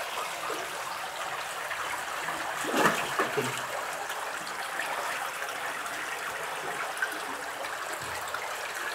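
Steady trickling and running of water inside a cave, with one brief louder sound about three seconds in.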